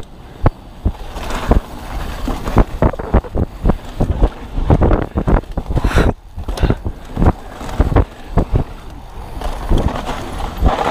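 2021 Polygon Siskiu T7 full-suspension 29er mountain bike descending a dirt trail at speed: wind rushing over the microphone and tyre noise on dirt, broken by frequent knocks and rattles as the bike hits bumps, with a brief lull about six seconds in.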